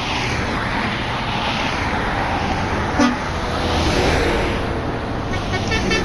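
Highway traffic passing, with a brief horn toot about halfway through. Near the end, an approaching tour bus's telolet horn starts playing a rapid melody of quickly changing notes.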